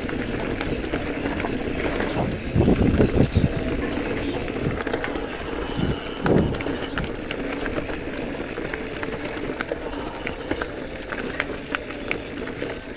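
Giant Trance E+ Pro 2 electric mountain bike ridden along a dirt singletrack: steady tyre and trail noise with light rattling clicks from the bike. Heavier bumps come about two and a half seconds in and again around six seconds.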